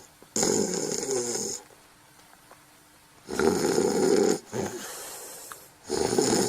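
Snoring: a snore about half a second in lasting about a second, a quiet pause, then louder snoring from about three seconds in, fading to a softer breath and rising again near the end.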